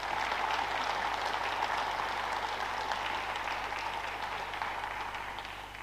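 Audience applause, a dense patter of clapping that thins out toward the end, greeting a potted red.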